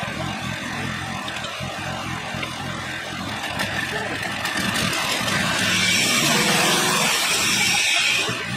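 The 14 horsepower Kohler engine of a Woodland Mills HM126 sawmill running steadily. About five and a half seconds in it grows louder, with a strong hiss, for about three seconds, then drops back.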